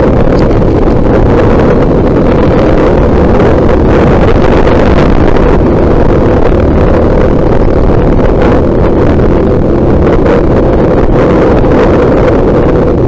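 Motorcycle engine running steadily at riding speed, with loud wind noise buffeting the microphone.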